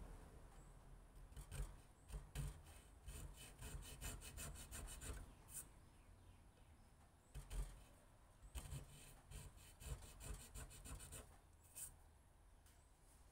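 Faint, quick scraping strokes of a small metal hand tool cutting anti-slip grooves into a wooden knife handle. The strokes come in short runs with pauses between them.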